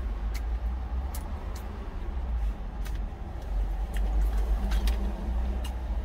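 Chewing a mouthful of food, with a few sharp clicks of a spoon against a stainless steel lunch container, over a steady low rumble.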